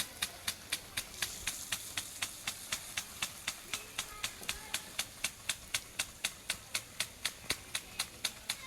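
Regular sharp clicking, about four clicks a second, over a faint high hiss.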